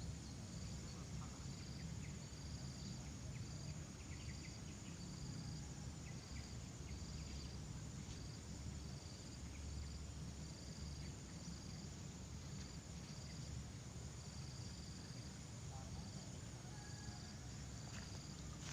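Insects chirping outdoors in a regular pulse, about one chirp a second, over a steady high-pitched insect whine and a low rumble.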